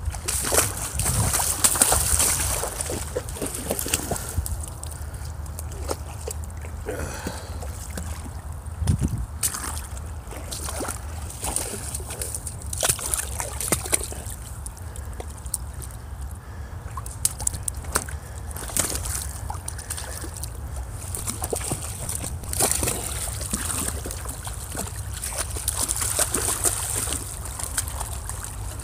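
Water sloshing and splashing irregularly as someone wades through a shallow rocky creek, with dogs splashing in the water near the end.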